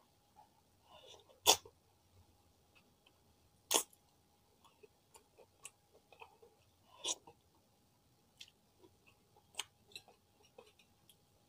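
Fingers picking through crispy kerupuk crackers in a bowl, with four or five sharp cracker snaps a couple of seconds apart among faint crackling and rustling.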